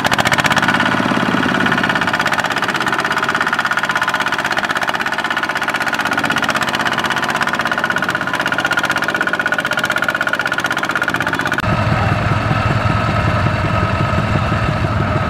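Single-cylinder diesel engine of a Kubota RT120 two-wheel walking tractor chugging steadily as it strains to pull a loaded trailer out of deep mud. About twelve seconds in the sound cuts abruptly to a closer, deeper, heavier engine chug from another stuck walking tractor.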